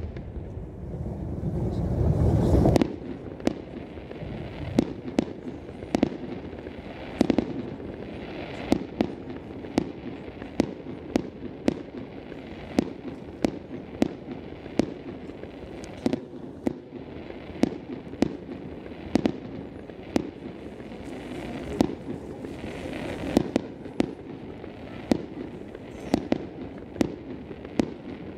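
Aerial fireworks going off: a long, irregular string of sharp bangs, about one or two a second. A loud low rumble fills the first three seconds before the bangs begin.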